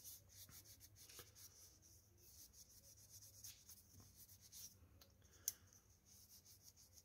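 Cloth rubbing over the wooden handle of an Okapi folding knife, wiping off dried polish residue after buffing: faint, quick scuffing strokes, with one sharp click about five and a half seconds in.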